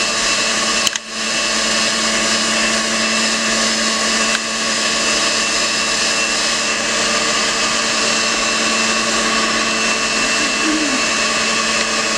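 Electric stand mixer running steadily with a constant motor hum, its beaters whipping cake batter in a stainless steel bowl. The sound dips briefly about a second in.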